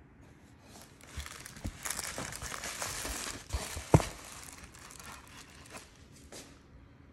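Thin plastic bag crinkling and a paperboard takeout box being handled and opened by hand, with one sharp snap about four seconds in as the lid comes open, then lighter rustling.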